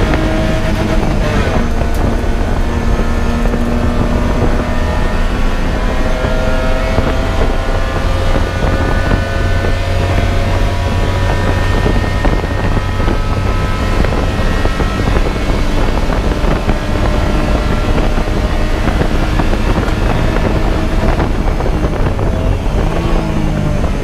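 Race car engine running hard at speed, its pitch climbing slowly for several seconds at a time. It drops about a second in, and falls in pitch near the end as the car slows.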